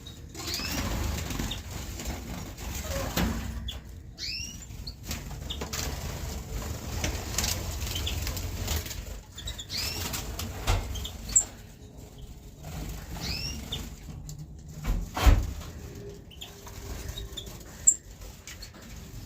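Gouldian finches in an aviary, wings fluttering as they fly about, with short high chirps repeated every second or two. A few sharp knocks stand out, the loudest about three-quarters of the way in.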